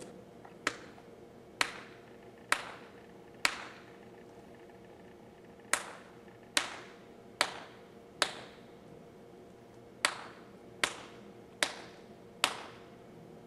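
Twelve sharp hand slaps on bare skin, in three runs of four, each slap just under a second apart with a short pause between runs: a hand smacking the neck in the Mexican gesture for downing a drink, counting drinks.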